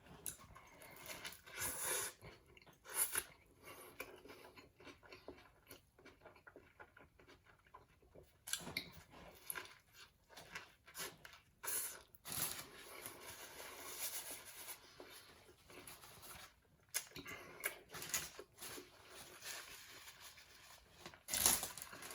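A person chewing a mouthful of sub sandwich close to the microphone, with wet, irregular mouth noises and occasional louder bites.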